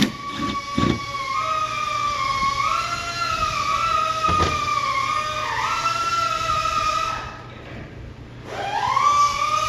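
A cordless power tool's motor whines as it spins a socket on the wiper arm nut, its pitch shifting up and down with the load. It stops about seven seconds in and spins up again near the end, with a few sharp clicks of the socket and tool.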